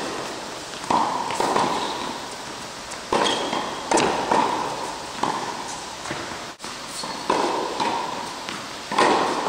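Tennis ball being struck by rackets and bouncing on an indoor hard court during a rally: sharp hits every second or so, each with an echoing tail from the hall.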